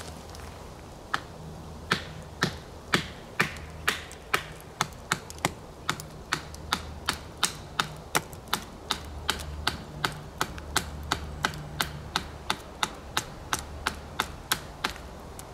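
Fixed-blade knife being batoned down into the end of an upright branch with a wooden baton to split it crosswise: a long run of sharp wooden knocks, about two to three a second and getting a little quicker, starting about a second in.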